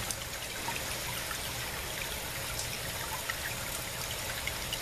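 Water trickling steadily in an aquaponics grow bed, a continuous even splashing flow.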